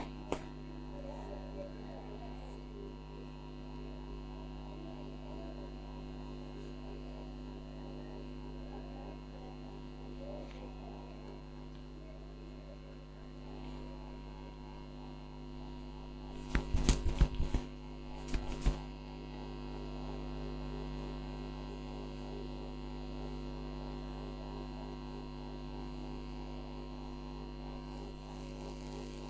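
Steady electrical mains hum, with a quick run of sharp knocks about seventeen seconds in and a few more a second later.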